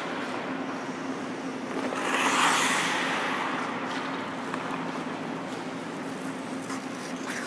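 Hockey skate blades scraping hard across the ice for about a second, around two seconds in, over a steady low hum, with a few faint clicks later on.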